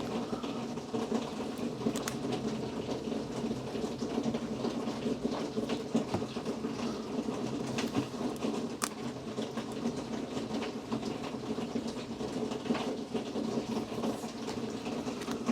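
Heavy rain falling steadily, heard from indoors, with scattered light clicks and ticks through it.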